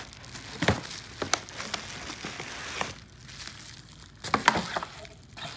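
Bubble wrap and plastic packaging crinkling as a wrapped camera body is handled and lifted out of its cardboard box, in irregular crackles with the loudest cluster a little before the end.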